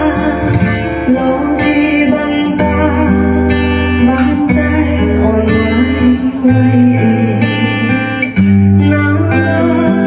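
Guitar-led music with some singing, played back through a Sansui 500A tube stereo receiver on a sound test after repair. Held notes sit over a bass line that moves every couple of seconds.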